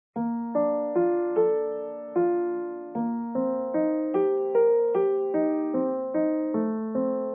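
Background music: slow solo piano, single notes and chords struck at an even, gentle pace, each ringing and fading before the next. It starts a moment in, out of total silence.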